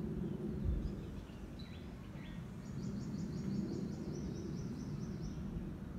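Low, steady rumble of a Boeing 737-9's CFM LEAP-1B jet engines, distant as the airliner flies away. Birds chirp over it: a few short chirps, then a fast run of high chirps from about three seconds in.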